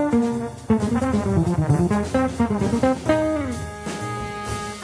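Jazz trombone solo over bass and drums: quick runs of short notes, with a falling slide about three seconds in.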